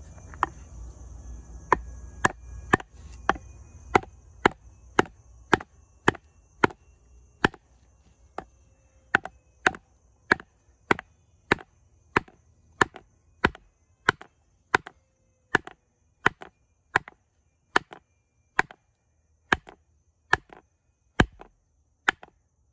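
Wooden baton hammering the spine of an LT Wright Forest Trail knife in A2 steel, driving the blade down through a log. It is a steady run of sharp strikes, nearly two a second.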